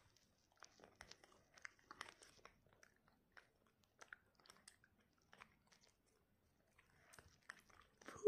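Faint, irregular mouth clicks and smacks of a child chewing gum.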